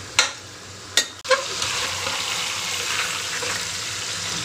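Marinated chicken leg pieces sizzling as they fry in oil in an aluminium pressure-cooker pot. A perforated metal skimmer knocks against the pot three times in the first second and a half, and after that the sizzle runs steady and louder.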